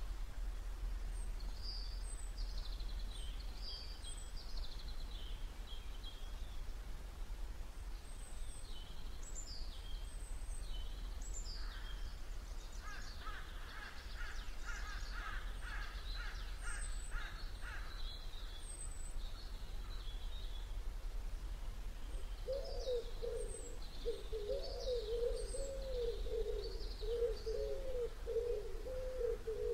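Wild birds calling over a steady low rumble: thin high chirps scattered throughout, a quick run of repeated notes in the middle, and from about three-quarters in a low, wavering call repeated over and over.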